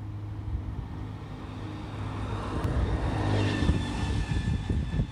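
Alexander Dennis Enviro 200 single-deck bus's diesel engine running as the bus approaches and draws up alongside, growing louder toward the middle. A high whining tone joins about three seconds in.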